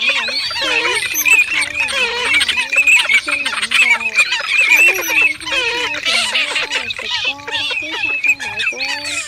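Eurasian coots and garganeys calling together, many birds at once: a fast, high chatter over lower calls that rise and fall. The calls are spliced together as a layered lure recording for waterbirds.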